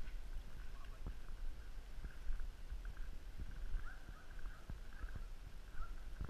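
Wind rumble on the microphone of a GoPro camera in its housing, with irregular soft thumps and knocks as the camera is jostled moving across snow.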